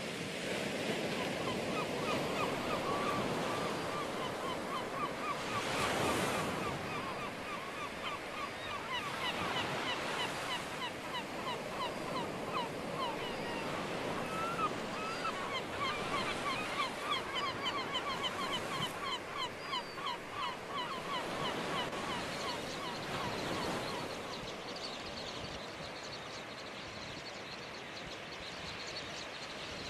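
Surf washing over coastal rocks, with gulls calling in quick repeated notes over it. The calls die away a few seconds before the end while the surf goes on.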